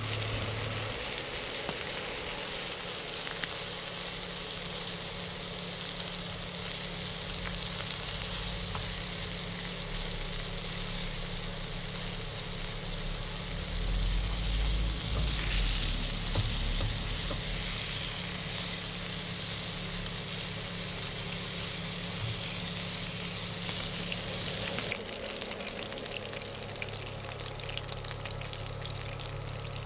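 Flour-dusted tilapia fillet pieces sizzling as they shallow-fry in hot oil in a pan: a steady, dense hiss, with a steady low hum beneath. The hiss drops away suddenly near the end.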